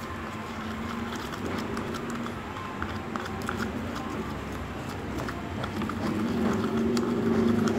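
A plastic spoon stirring a thick, grainy toothpaste-and-sugar paste in a plastic cup, with rapid small clicks and scrapes against the cup. A low steady hum grows louder near the end.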